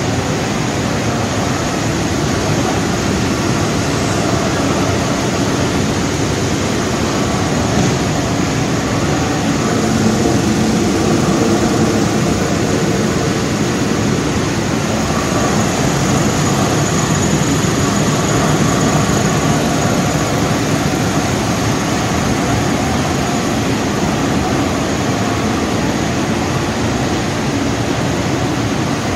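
Bread crumb production machinery running: a motor-driven vibrating sieve shaking crumbs through its mesh, together with the rest of the crumb plant, making an even mechanical noise that holds steady throughout.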